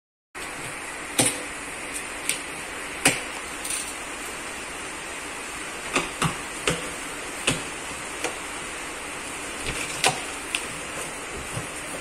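A cardboard e-bike shipping box being opened by hand: about a dozen short sharp knocks and taps at irregular intervals as the flaps and packing are handled, over a steady hiss.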